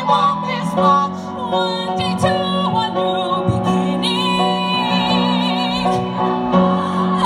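Female voices singing a song through microphones over an instrumental accompaniment, with a long note sung with vibrato in the middle.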